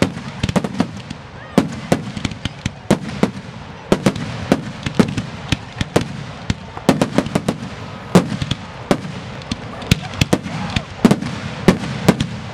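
Aerial firework shells bursting in a finale barrage: many sharp bangs in fast, irregular succession, several a second and sometimes clustered, over a constant low rumble.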